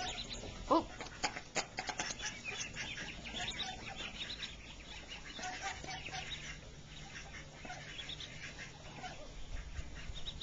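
Mallard ducklings peeping, many short high calls overlapping throughout.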